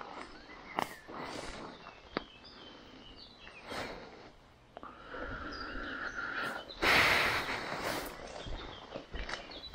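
Footsteps and rustling on a muddy trail, with scattered crunches and a louder brushing rustle about seven seconds in.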